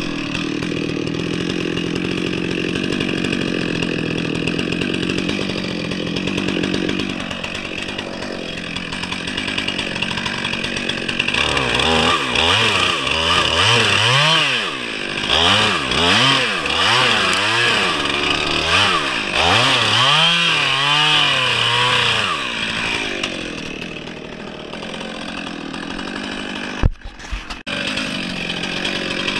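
Stihl MS 362 two-stroke chainsaw cutting pine: it runs under steady load for the first several seconds, then its pitch rises and falls over and over as the throttle is worked through the wood. Near the end the sound cuts out for a moment and comes back.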